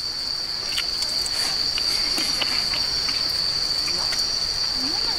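Crickets trilling in one steady, unbroken high note, with a few light clicks scattered through it.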